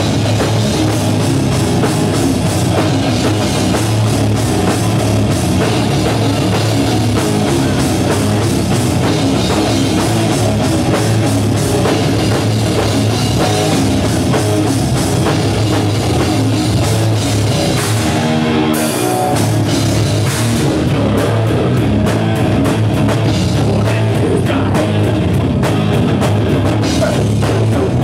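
Live metal band playing loud, distorted electric guitars over a driving drum kit. The cymbals drop out briefly about two-thirds of the way in, then the full band comes back in.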